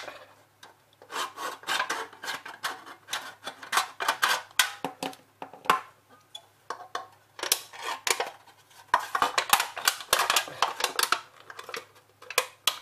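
Thin aluminium drinks can being slit with a multi-tool blade and its cut panels bent open by hand: irregular crinkling and clicking of the thin metal.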